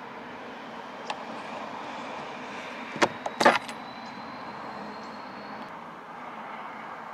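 A hook tool prising the wire spring clip off a manual car window winder handle: a light click, then a cluster of sharp metal clicks about three seconds in as the clip comes free, over a steady background hiss.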